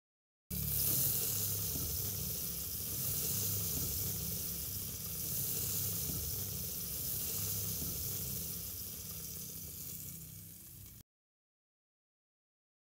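Steady sizzling hiss of food frying, easing off a little before it cuts off abruptly about eleven seconds in.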